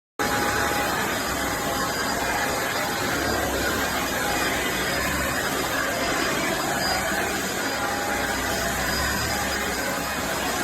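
Corded stick vacuum cleaner running steadily, a loud even motor and airflow noise with a faint steady whine. It starts abruptly just after the beginning.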